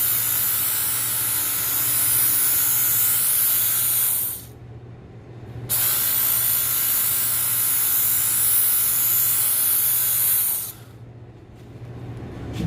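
Knife blade being ground on a running power sharpener while its edge is reshaped: two long passes of hissing grinding, about four and five seconds long, with a short break between them. The machine's motor hums steadily throughout.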